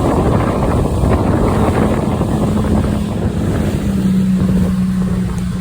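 Motorboat engine running steadily under way, with wind buffeting the microphone and water rushing past the hull.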